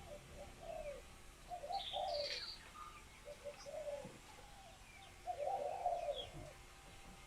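Female spotted dove, a hen in laying condition, cooing in short runs of low notes, four runs in all, the longest a little past five seconds in. A smaller bird chirps briefly about two seconds in.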